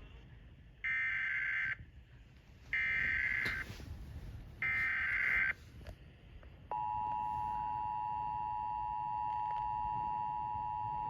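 Emergency Alert System SAME header: three short bursts of warbling data tones, about a second each, followed about two-thirds of the way in by the steady two-tone attention signal. It opens a tornado warning broadcast.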